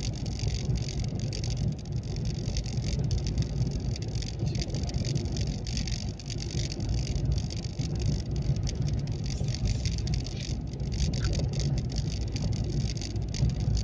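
A car driving along a paved road: a steady low rumble of engine and tyres, with many short clicks and rattles over it.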